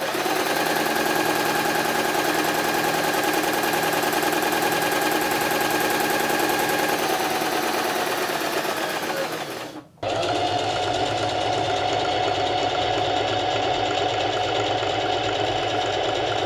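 Butterfly JH8190A portable sewing machine, the lower-bobbin type said to be the noisier kind, running steadily at speed, then slowing and stopping just before ten seconds in. Right after, a second portable sewing machine with a top drop-in bobbin stitches fabric at a steady speed.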